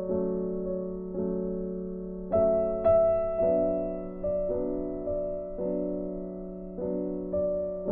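Background music: slow solo piano, chords struck about once a second and left to ring and fade.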